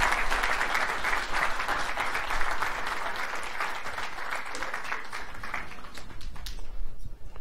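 Audience applauding, the clapping slowly dying away over the last couple of seconds.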